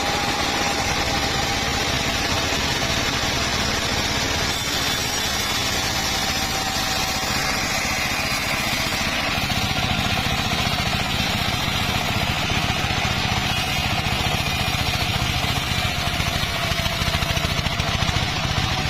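Engine-driven circular saw running steadily while sawing teak wood: a constant engine drone under the spinning blade's whine and the hiss of the cut.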